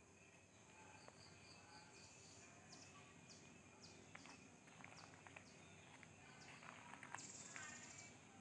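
Faint woodland ambience: a steady high insect drone, with birds giving short downward-sweeping chirps from about two seconds in and a brief buzzing trill near the end.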